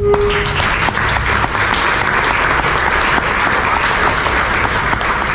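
An audience applauding: many hands clapping steadily, as the next speaker is called up.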